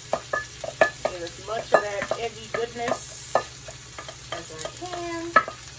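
Beaten egg being scraped out of a stainless steel mixing bowl into a hot frying pan: a utensil clicks and scrapes against the metal bowl, with a few short squeaky scrapes, over a steady sizzle from the pan.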